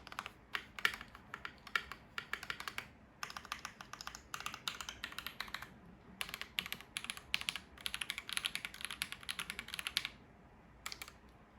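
Typing on a Keychron V1 mechanical keyboard with a steel plate, lubed and filmed NK Dry Black linear switches, tape mod and poly-fill, struck through GMK Space Cadet keycaps. Quick runs of keystrokes come in bursts with brief pauses, stopping about ten seconds in, followed by a couple of single strokes near the end.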